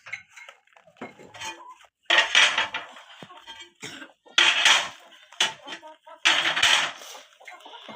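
Pots and metal utensils clattering and scraping: three loud scrapes about two seconds apart, with lighter clinks in between.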